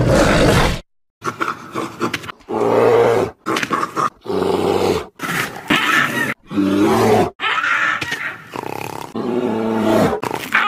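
Dubbed creature roars and growls, sound effects of a dinosaur and a bear, in about eight short spliced bursts that each cut off abruptly, some with a pitched, wavering tone.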